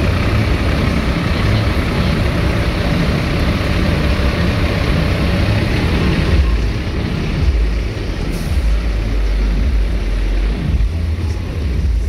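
Big-rig truck engines idling, a loud, continuous low rumble that thins out in the upper range about six seconds in.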